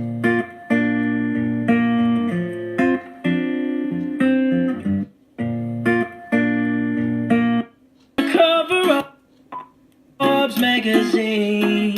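Pop song played through a SoundPEATS P4 Bluetooth speaker: strummed guitar chords in short stop-start phrases, a brief sung line, then the full band coming back in near the end.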